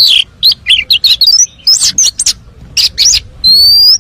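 Oriental magpie-robin singing loudly: a quick run of short, varied chirps and trills, then one long rising whistle near the end. The song is full of varied phrases, typical of a competition-trained bird.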